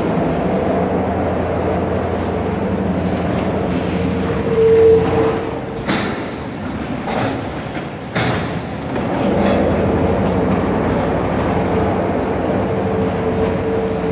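Large tannery roller machine running with a steady mechanical hum and rumble as a leather hide is fed through it. A few sharp clacks come around the middle.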